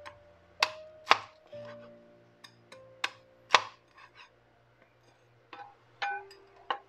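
Kitchen knife chopping through crispy-skinned pork belly onto a wooden cutting board: about seven sharp crunching chops in rough pairs, the loudest about three and a half seconds in.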